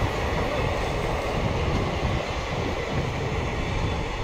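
Indian Railways passenger coaches rolling past on the track: a steady noise of wheels on rails, heaviest at the low end.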